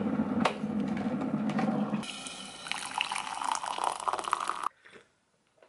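Klarstein glass electric kettle rumbling as it comes to the boil; about two seconds in this gives way to hot water being poured into a mug, a brighter splashing fill that cuts off abruptly about a second before the end.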